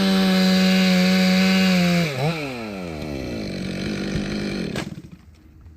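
Chainsaw running at full throttle, then let off with a brief blip. It settles to a lower idle and is switched off with a click about five seconds in.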